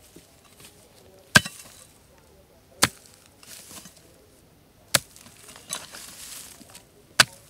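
A hoe chopping into hard, dry soil four times at uneven intervals, each sharp strike followed by clods crumbling and scattering.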